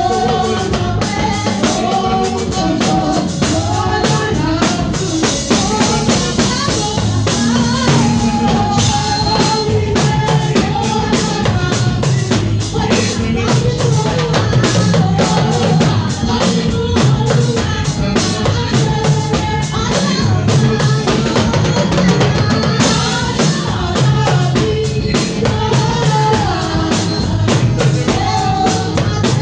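Music with a steady drum-kit beat, a bass line and a melody, with singing.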